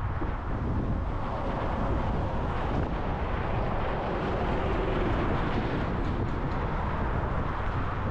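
Car driving at highway speed: a steady rumble of road and wind noise, swelling slightly around the middle.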